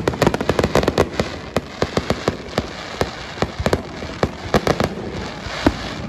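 Aerial fireworks going off: a rapid, irregular string of sharp bangs over a continuous crackle.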